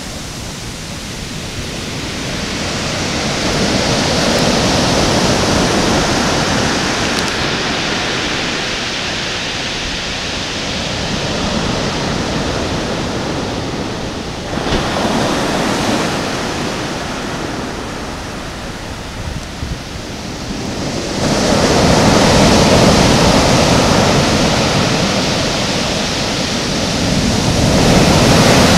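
Sea surf breaking on a sand and shingle beach: a continuous rush of water that swells and eases every several seconds as waves come in and wash up the shore.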